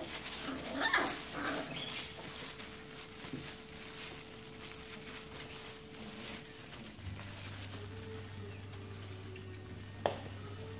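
A litter of four-week-old Labrador Retriever puppies scuffling and padding about on a quilted pad, with a few short high whimpers about a second in and a sharp brief squeak near the end.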